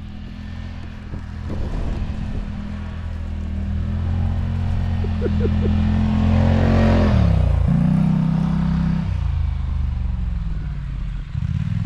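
A motor vehicle's engine running and revving as it comes closer and passes by. It grows louder with a rush of noise at its closest, then its pitch drops sharply a little past halfway as it goes by.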